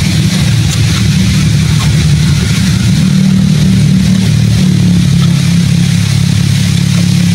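An engine running steadily with a low, unchanging drone.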